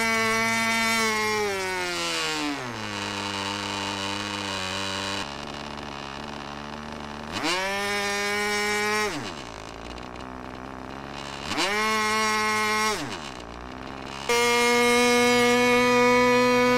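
O.S. 15LA two-stroke glow engine with an 8x4 propeller. It runs at full throttle, then is throttled down to a low idle, revved up and back down to idle twice, and is back at full throttle near the end.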